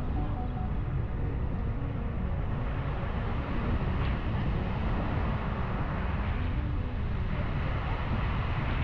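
Steady beach ambience of wind rumbling on the microphone and surf washing, even in level.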